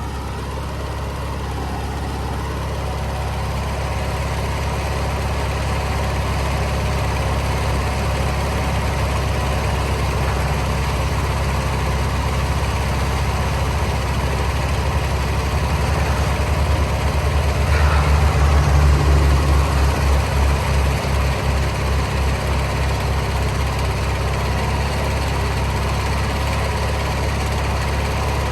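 John Deere 400 garden tractor's twin-cylinder engine running steadily. About two-thirds of the way through it grows louder with a pulsing beat for a few seconds, the engine taking load as the front loader's hydraulics lift.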